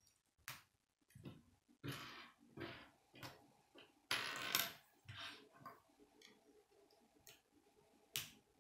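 Plastic K'nex rods and connectors clicking and rattling as they are handled and snapped together: scattered short clicks, with a longer rattle about four seconds in and a sharp click near the end.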